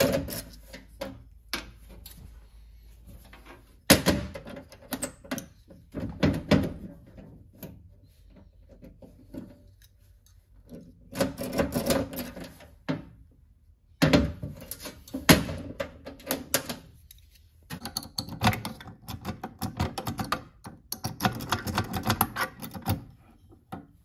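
Picking the key lock of a Notifier fire alarm control panel: a metal pick scraping and clicking in the keyway in irregular spells, with a few sharper knocks, the loudest about four seconds in and again about fourteen and fifteen seconds in.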